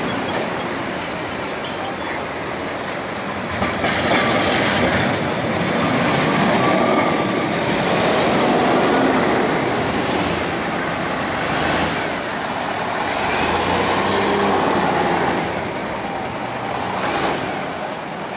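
Historic Carris street tram rolling on its rails amid city traffic of cars and tuk-tuks. The mixed traffic noise grows louder about four seconds in, with a few short knocks along the way.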